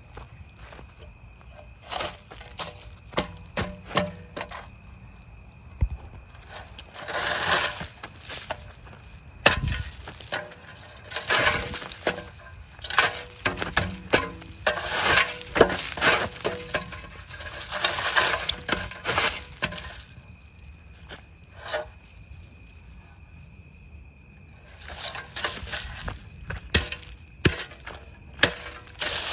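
Irregular rustling, scraping and sharp knocks close to the microphone, in clusters with quieter gaps between, from a phone being carried and handled. A steady high insect drone runs underneath.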